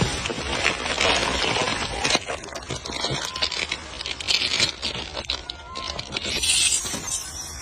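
Close rustling and crackling with scraping, many small crackles running together. A faint short rising chirp comes twice.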